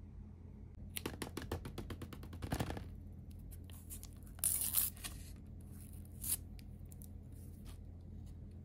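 Paper toothpick wrapper being torn open by hand: about two seconds of fast small crackles, then two short, louder rustling rips as the paper comes apart and the toothpick is pulled free.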